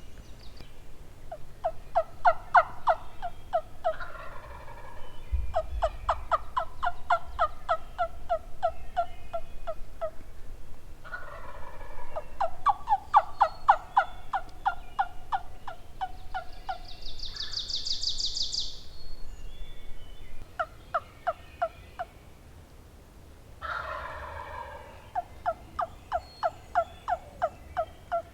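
Wild turkey gobblers gobbling over and over, rapid rattling calls that fall in pitch, coming in several runs with short pauses between them.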